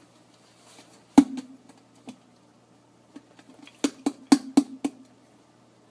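Sharp knocks and taps of kitchen containers and utensils: one loud knock about a second in, a few lighter taps, then a quick run of about five knocks near the end.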